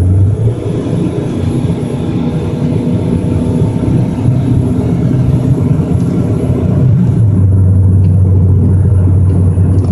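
Four-cylinder Mazda 626 engine and exhaust heard from inside the cabin with the windows up, pulling uphill under acceleration. A loud, steady low drone; the exhaust carries a clamp-on turbo whistle.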